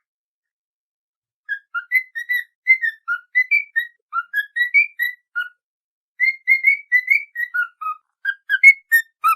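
A whistled tune of quick, short notes, in two phrases with a brief pause about six seconds in.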